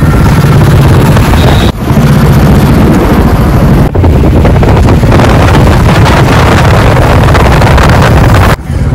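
Wind buffeting the microphone over the running engine of a moving two-wheeler, loud and steady, with brief drops about two seconds in, about four seconds in, and near the end.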